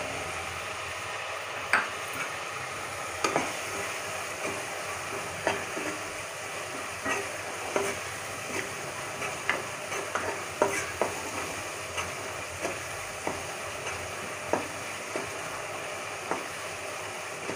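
Masala and green peas sizzling as they fry in a non-stick kadai, stirred with a long-handled spoon that scrapes and knocks against the pan every second or so, starting about two seconds in. The masala is being fried (bhuna) until done.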